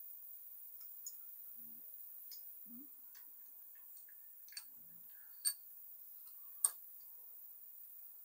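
Faint, scattered metallic clicks of steel push rods being dropped through the cylinder heads of a Ford 302 V8 into the lifters, with two sharper ticks about a second apart past the middle.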